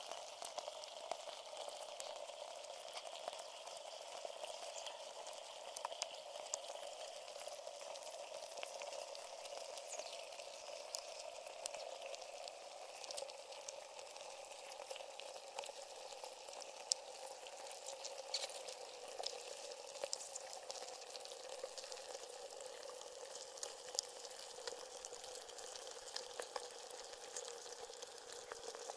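Faint, steady crackling hiss like static or frying, peppered with small clicks, over a dull hum that slowly sinks a little in pitch.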